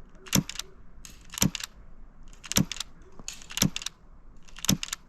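Suppressed Tokyo Marui Mk23 green-gas airsoft pistol firing at a target: five sharp, quiet clicks about a second apart.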